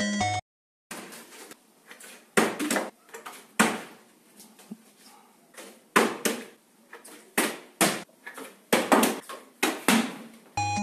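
A plastic water bottle being tossed and landing on a tiled counter again and again: sharp knocks and clatters, often in pairs as it hits and bounces.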